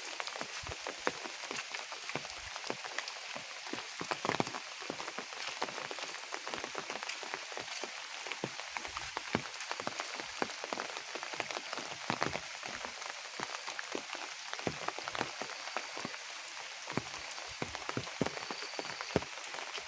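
Steady heavy rain, a dense, irregular patter of drops hitting surfaces.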